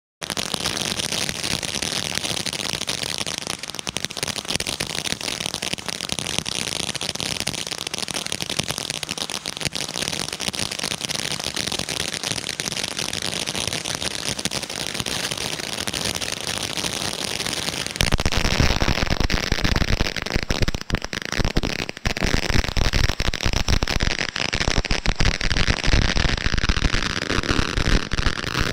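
Brothers Fireworks Krakatoa ground fountain burning: a steady, loud hiss of spraying sparks thick with fine crackling. About 18 seconds in it grows louder and heavier, with a deeper rush and many sharper crackles and pops.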